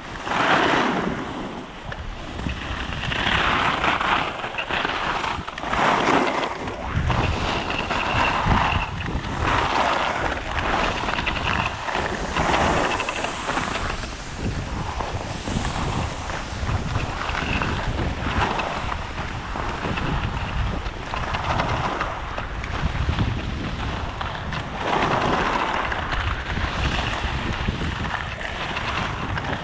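Skis carving on groomed snow, a scraping hiss that swells with each turn every two or three seconds, over a steady rumble of wind on the microphone.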